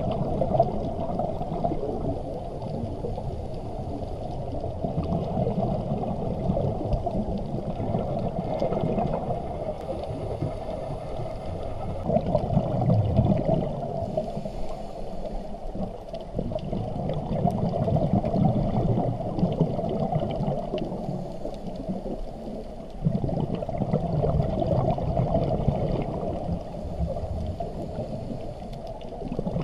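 Muffled underwater noise heard through a dive camera's housing: gurgling of scuba exhaust bubbles and moving water, swelling and easing every few seconds.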